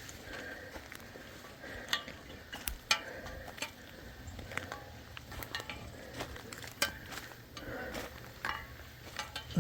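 Footsteps through brush, with irregular crackles and sharp snaps scattered throughout.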